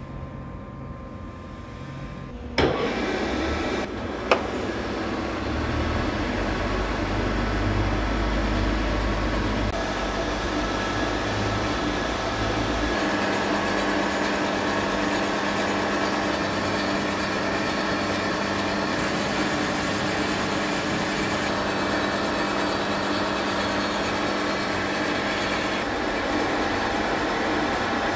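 SIP Hydroptic No. 6 jig borer face milling the top plate of a welded stand with an inserted-tooth face mill, taking a 0.2 mm pass. A sharp knock comes a couple of seconds in and a smaller one just after. Then a steady, loud cutting noise with a low hum runs on as the cutter works across the plate.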